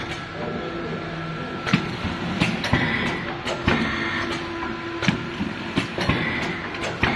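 Automatic PE-film packing machine running, a steady mechanical hum broken by irregular sharp clicks and knocks from its moving parts, with a short hiss that comes and goes.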